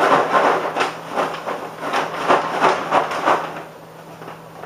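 Paper bag of chocolate-coated Chex cereal and powdered sugar being shaken hard, the cereal rattling and the paper rustling about three shakes a second, stopping about three and a half seconds in.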